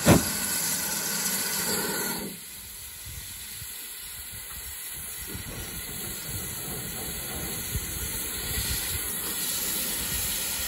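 Steam locomotive standing at the platform blowing off steam: a loud hiss that cuts off suddenly about two seconds in, leaving a quieter hiss that slowly builds again. A loud thump comes right at the start.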